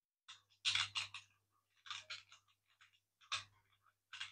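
Plastic parts of a 3D-printed rubber-band car clicking and scraping in short bursts as it is turned by hand, winding up the rubber bands inside.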